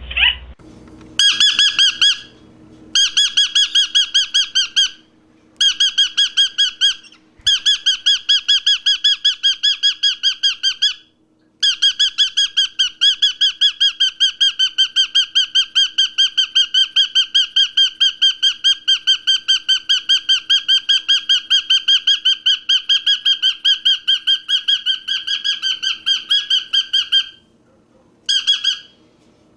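A bird calling in a rapid, even series of short harsh notes, about five a second, in several bouts broken by brief pauses, the longest lasting about fifteen seconds.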